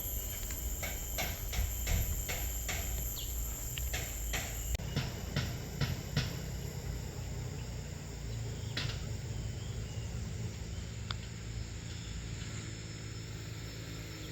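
Steady high-pitched insect chorus over a low rumble, with a run of sharp clicks about every half second in the first six seconds; the high insect whine cuts off about five seconds in.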